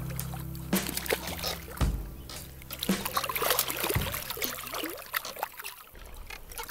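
Hooked pink salmon thrashing at the surface of shallow sea water, with irregular splashes and trickling water as it is played in close to a wading angler.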